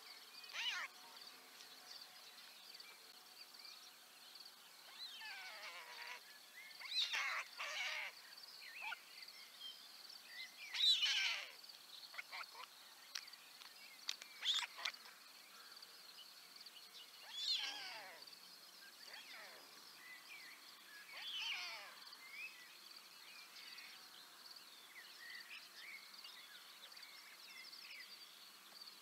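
Scattered short bird calls, each a quick sweeping chirp under a second long, come every few seconds over a faint steady high hiss: outdoor morning birdsong.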